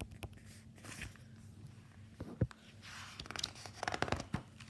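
Paper pages of a large picture book being handled and flipped over: faint rustling and flapping of the sheets, with light taps and one sharper knock about halfway through.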